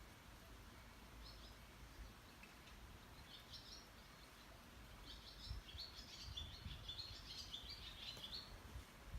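Faint bird chirping: a couple of short high notes in the first few seconds, then a quick run of chirps from about five seconds in until near the end.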